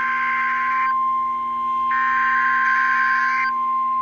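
NOAA Weather Radio's 1050 Hz warning alarm tone, a steady high tone, with bursts of SAME digital header data laid over it. The bursts are a harsh buzzy warble; one ends about a second in and a second runs for about a second and a half near the middle.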